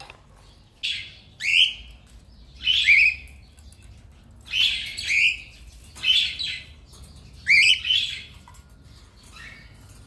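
Cockatiel calling: a string of short, harsh chirps, each with a quick rise and fall in pitch, coming every second or so.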